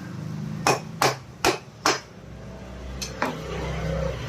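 Sharp metal taps and knocks while parts are fitted onto a scooter's cylinder head: four quick ones about a third of a second apart, then two more near three seconds in. A steady low hum runs underneath.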